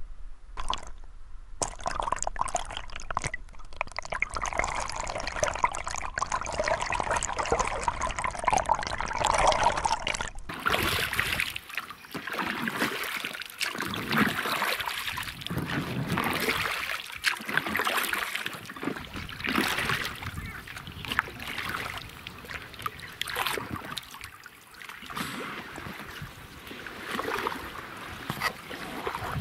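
Water heard through a camera held underwater in a waterproof housing: muffled bubbling and gurgling for about ten seconds. Then, after a sudden change, a double-bladed paddle dipping and splashing in irregular strokes beside an inflatable packraft.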